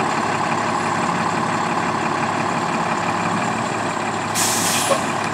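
Fire engine idling steadily, with a short hiss near the end.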